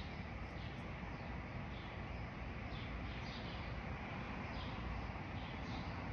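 Birds chirping repeatedly over a steady low background noise.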